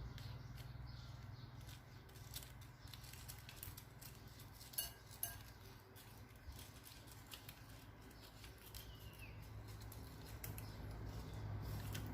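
Slime being handled and squeezed: scattered soft sticky clicks and crackles, two sharper pops about five seconds in.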